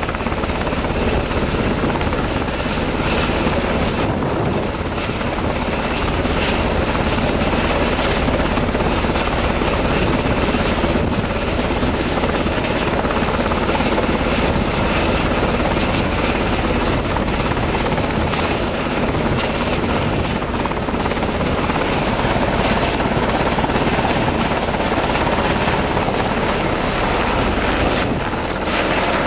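Sikorsky MH-60T Jayhawk helicopter hovering close overhead, its rotor and twin turboshaft engines running loud and steady.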